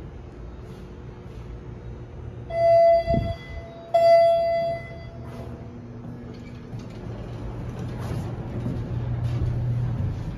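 Electronic hall-lantern chime of a Schindler-modernized traction elevator sounding twice, two clear tones about a second and a half apart, signalling a car arriving to go down. A steady low hum runs underneath and grows louder toward the end as the car's doors open.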